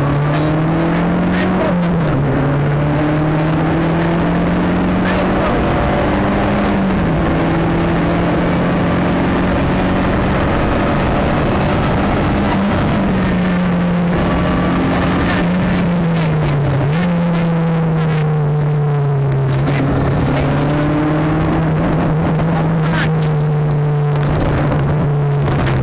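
Nissan Sunny GTi-R rally car's turbocharged four-cylinder engine under hard driving, heard from inside the cabin. The engine note climbs and drops back sharply at gear changes, about three times. Near the end, sharp ticks and clatter come in as the car runs onto gravel.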